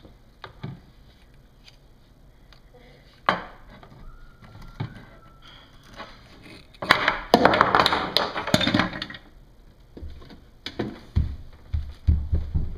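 A toy knife chopping and knocking a toy vegetable on a toy cutting board: scattered sharp clacks, with a louder, noisier stretch of about two seconds in the middle. Low bumps come near the end as the camera is handled.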